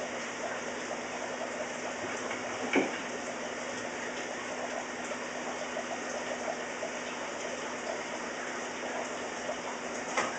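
Steady rush of running water in an aquarium being drained, with a faint steady hum under it. A short knock about three seconds in and another near the end.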